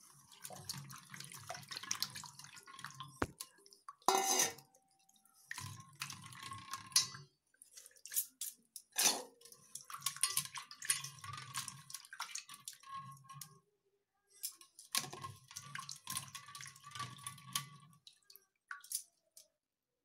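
Water sloshing and dripping as hands rub and rinse raw fish pieces in a steel bowl of water. The sound comes in irregular bursts with short pauses, and there are a few sharp clinks against the bowl.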